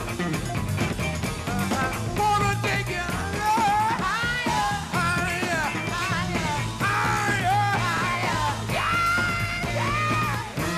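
Funk-rock band playing at full level, with a lead singer's voice sliding up and down in pitch over it from about two seconds in.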